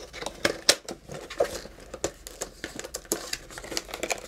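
Cardboard retail box being opened by hand, its lid and packaging handled with irregular rustling, crinkling and small clicks and scrapes.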